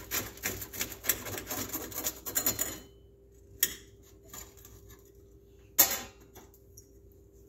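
Knife sawing through a toasted English muffin sandwich on a plate: a rapid, scratchy rasp for about the first three seconds. Then a few light knocks, and a sharp clink near six seconds as the knife is laid on a metal baking sheet.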